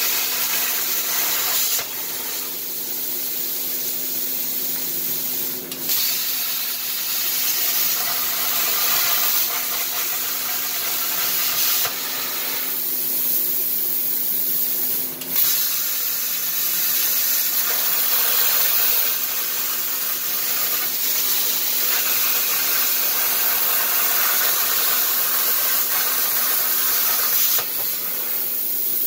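Everlast PowerPlasma 60 plasma cutter's machine torch cutting sheet metal on a CNC table: a loud, steady hiss of the arc and cutting air, which drops to a softer hiss three times as the arc stops between cuts and starts again. A steady low hum runs underneath.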